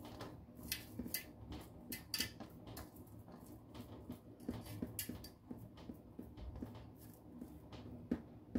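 Faint handling sounds of hands pressing and rolling raw minced meat into a log on a perforated metal pan, with scattered light clicks.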